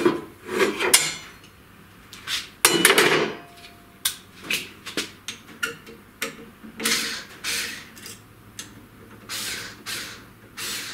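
Irregular knocks and clatter of a metal square and hand tools being handled on a wooden board, with a few longer scraping sounds between the knocks.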